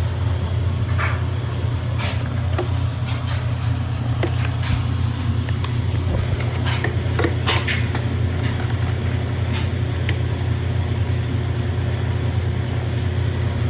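Cordless handheld vacuum cleaner with a long nozzle running steadily with a low hum, with scattered clicks and knocks on top.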